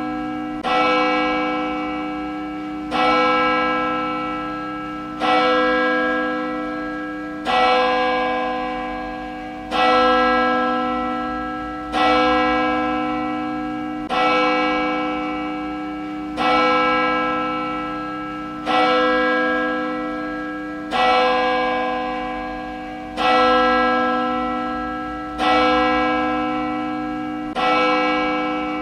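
A church bell tolling at a slow, even pace, about one stroke every two seconds. Each stroke rings on and fades under the next.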